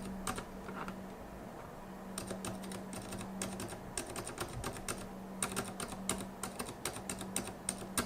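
A Zilent V2 67 g silent tactile mechanical keyboard switch pressed over and over in a switch tester, soft muted clacks coming in quick runs of several presses with short pauses between. A faint steady hum runs underneath.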